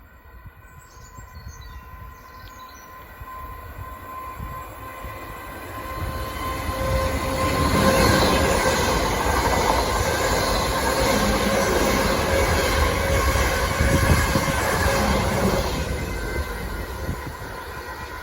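Two coupled Class 444 Desiro electric multiple units passing. The rumble of wheels on rail and a steady whine build up, hold for several seconds as the train goes by, then fade away.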